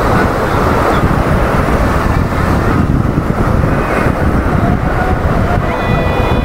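Wind buffeting the microphone over the rush of sea surf, a loud steady rumble. A steady pitched tone with several overtones comes in near the end.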